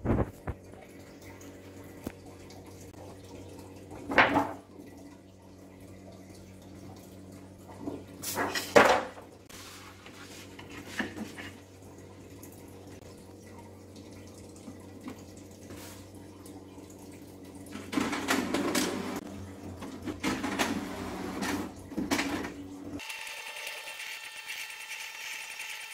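A stiff sheet of X-ray film being handled on an inkjet printer's scanner glass: scattered rustles and knocks over a low steady hum. About 23 s in, the sound changes abruptly to a steady high-pitched whir.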